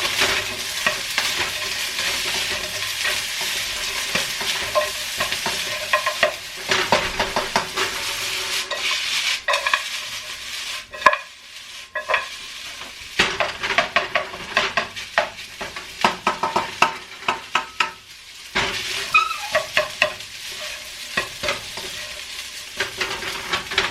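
Egg fried rice with frozen vegetables sizzling in a hot pan as it is stirred, with frequent clicks and scrapes of the utensil against the pan; the vegetables are being brought up to heat. The sizzle and stirring ease briefly about eleven seconds in, then pick up again.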